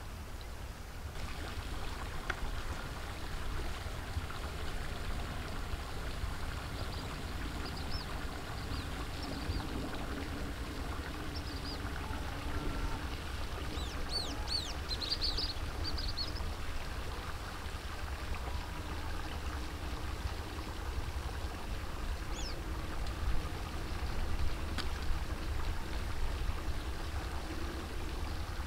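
Outdoor field ambience: a steady low rumble with a faint hiss, and a cluster of short, high bird chirps about halfway through.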